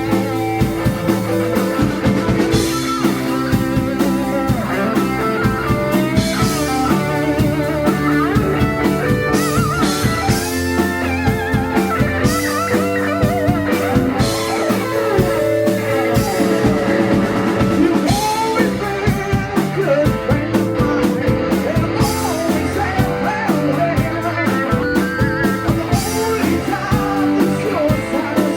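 Blues-rock band playing: electric guitar lines that bend and waver in pitch over sustained chords, bass and a steady drum kit beat.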